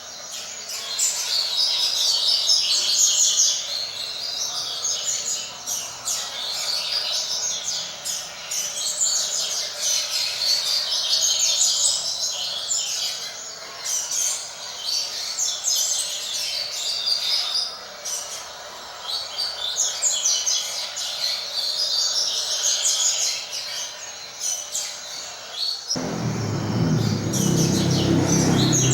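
Double-collared seedeater (coleiro) singing its chattering song in repeated phrases, a few seconds apart. Near the end a low rumbling noise comes in suddenly under the song.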